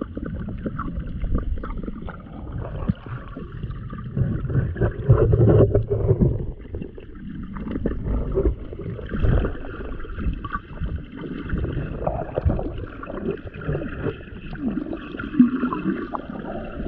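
Muffled underwater sloshing and rumbling of shallow water moving around a submerged camera, with scattered faint clicks.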